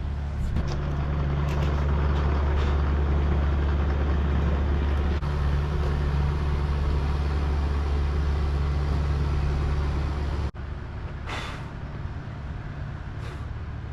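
Steady machine running, a low hum under an even roar, which cuts off abruptly about ten and a half seconds in. A quieter stretch follows with two short hisses.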